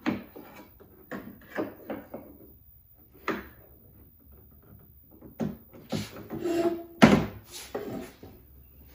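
Handling a wooden board and tightening bar clamps on a CNC router's clamping fixture: a series of short knocks, clicks and scrapes of wood and clamp parts, the loudest a little after seven seconds in.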